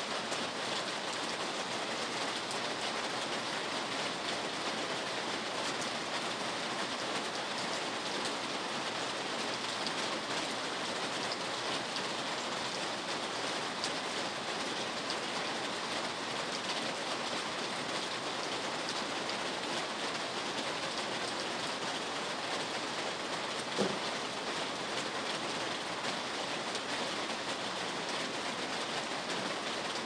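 Steady rain falling, an even hiss with no let-up. One short knock sounds about three-quarters of the way through.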